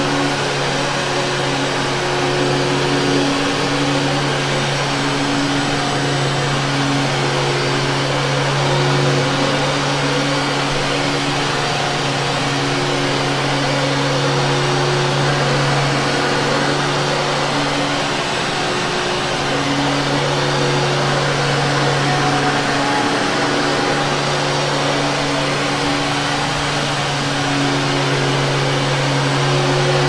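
Vintage Hoover Caddy upright vacuum cleaner running steadily on carpet: a constant motor hum under a rush of airflow hiss. The low hum swells and eases a little now and then as the machine is pushed back and forth.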